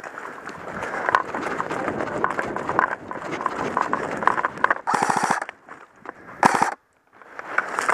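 Crackling and rustling of steps through dry twigs and forest litter, then two short full-auto bursts from an airsoft gun, about five and six and a half seconds in, each a fast rattle of shots.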